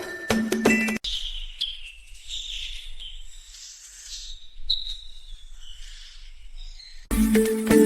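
Repeated short, high-pitched chirps with small rises and falls in pitch, like small birds or a small animal calling. Jingly background music plays in the first second and comes back near the end.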